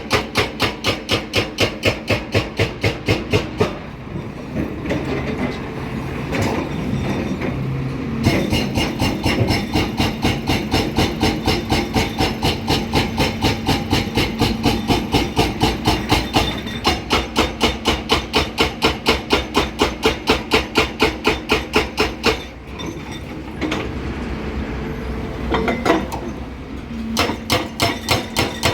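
Excavator-mounted hydraulic breaker hammering rock in rapid, even blows of about six a second. It pauses twice, leaving the diesel engine running, then resumes.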